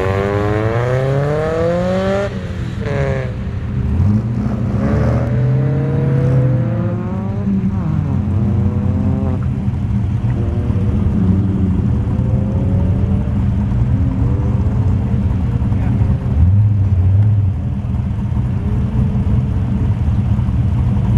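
BMW 318ti's stock M42 1.8-litre four-cylinder engine, breathing through a 4-into-1 header, test pipe and two Cherry Bomb glasspacks, revving hard on an autocross run. The pitch climbs steadily over the first two seconds as the car launches, then drops and climbs again several times through the run.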